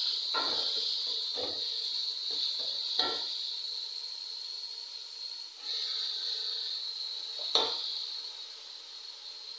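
Chopped greens sizzling in oil in an aluminium pot as they are stirred with a wooden spoon. The spoon knocks against the pot a few times, loudest about three and seven and a half seconds in, and the sizzle fades toward the end.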